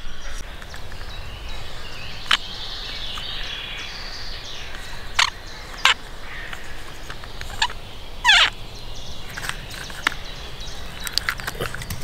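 Woodland ambience with birds calling. It is broken by a few sharp clicks or snaps: one about two seconds in, two around five to six seconds, and a cluster near the end. A short squeaky call sounds around eight seconds.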